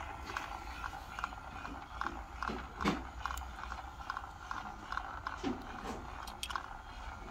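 Toy fishing game's battery-driven gear mechanism running, clicking in a steady rhythm of about two to three clicks a second, just after a click as its switch is pressed.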